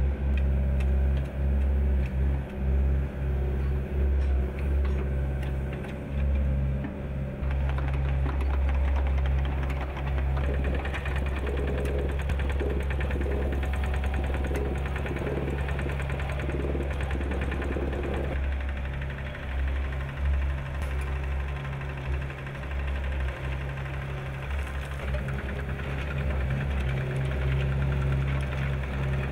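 Mini excavator's diesel engine running, its level rising and falling with hydraulic work. About a quarter of the way in, a vibratory plate compactor starts a fast, steady rattle that runs on over the engine.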